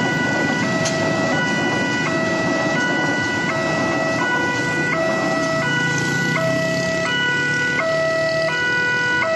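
Railway level-crossing warning alarm sounding a repeating electronic two-tone chime, the notes alternating about every 0.7 s, over the rumble of a passing train and motorcycle engines.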